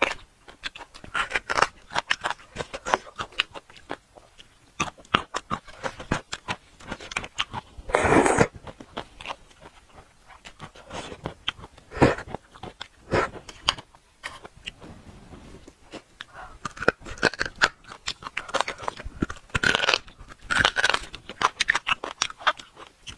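Close-up eating of braised bone marrow and meat on the bone: wet chewing, lip smacks and sucking, with irregular sharp clicks. A louder slurp comes about eight seconds in, as marrow is sucked from a bone.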